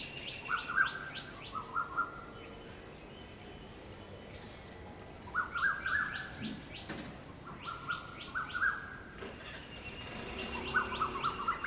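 Asian koels calling: groups of short, rising whistled notes repeated several times. Fast series of sharp, higher notes from another bird come in between.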